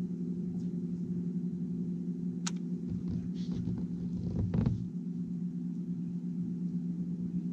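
Steady low hum of the bass boat's motor, made of several even tones. A sharp click comes about two and a half seconds in, and a thump, the loudest moment, a little after four and a half seconds.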